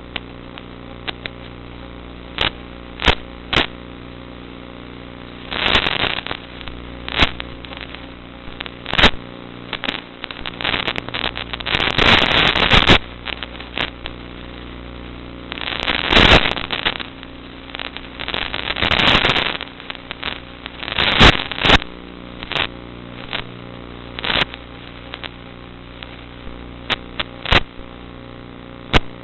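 Onboard audio from a Zagi FPV flying wing: a steady motor hum broken by many sharp clicks and repeated bursts of crackling that last a second or two.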